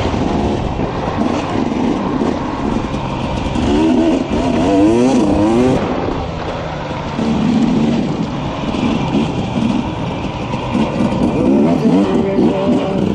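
KTM 300 XC's single-cylinder two-stroke engine running under a rider's throttle, revving up and down repeatedly, with quick rising and falling swoops in pitch about four seconds in and again near the end.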